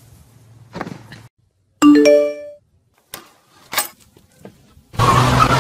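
A loud two-note chime like a doorbell ding-dong sounds about two seconds in, right after a brief dead silence, and rings out over less than a second. Two short knocks follow, and music with a steady beat starts near the end.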